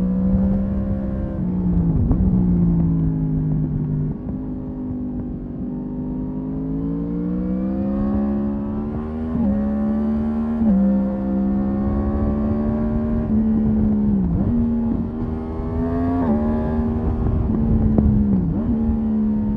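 Yamaha MT-10's 998 cc crossplane inline-four engine under hard riding, heard from onboard. Its pitch climbs and falls, with quick dips and recoveries every few seconds as the throttle is rolled off and on, over wind rush on the microphone.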